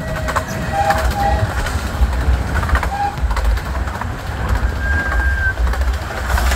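A 15-inch gauge miniature railway carriage running along the track: a steady low rumble of wheels on rail with light clicks, and a few short whistle-like notes over it.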